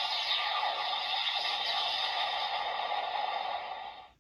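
Electronic sound effect from the speaker of a PDX Laser Raise Riser toy: a steady hissing rush that fades and cuts off near the end.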